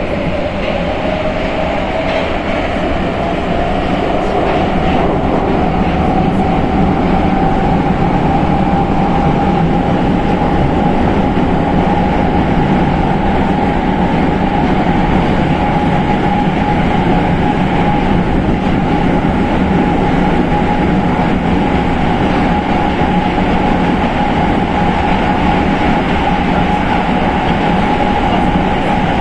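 Prague Metro 81-71M train running through a tunnel with steady wheel and track rumble. A motor whine rises in pitch over the first several seconds as the train accelerates, then holds steady at cruising speed.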